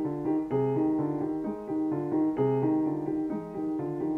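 Solo piano music, an even line of notes changing about twice a second.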